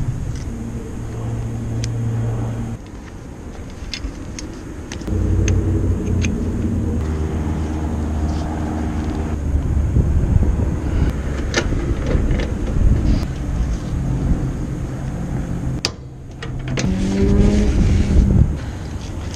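Low hum of a running motor or engine, dropping away for a couple of seconds early on and shifting in pitch, with scattered small metallic clicks of tools and brass valve fittings being handled.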